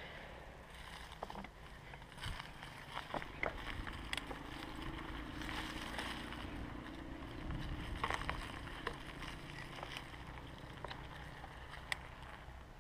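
A Scott Scale 970 mountain bike rolling along a dirt trail: tyres running over dirt and leaves with a steady low rumble, and the bike rattling with scattered sharp clicks over bumps.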